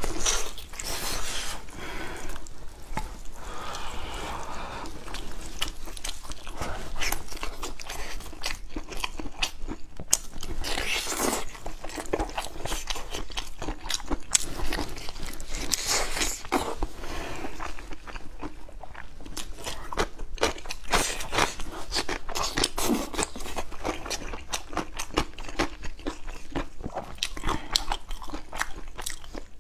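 Biting and chewing of braised meat torn from a fan bone (shoulder blade), a steady run of short sharp mouth clicks and wet chewing with crunchy bites.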